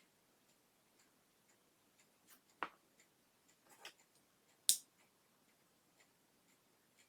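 A few scattered short, sharp clicks and taps over a quiet background, the loudest and highest-pitched one a little past the halfway point.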